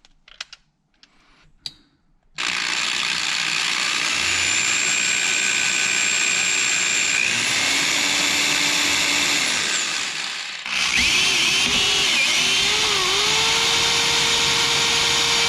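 Electric drill boring a 1/16-inch pilot hole through the car's body metal. A few light clicks come first, then the drill runs steadily from about two seconds in. It cuts out briefly about ten seconds in and starts again, its pitch dipping and rising under load.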